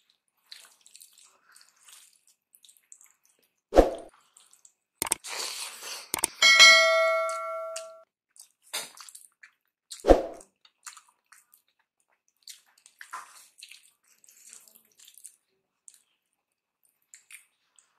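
Soft wet squishing of a bare hand mixing rice with mashed potato and dal on a plate, broken by two sharp knocks about 4 and 10 seconds in, and a bright bell-like ding about six and a half seconds in that rings for over a second.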